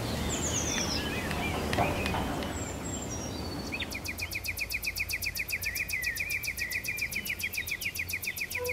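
Outdoor rural ambience with a few short bird chirps. About four seconds in, a rapid, even trill of about ten pulses a second starts and runs on.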